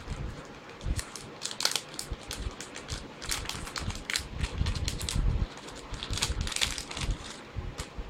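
Plastic packaging crinkling and crackling in the hands as a small audio splitter cable is handled and unwrapped: a run of short crackles with a few dull handling bumps.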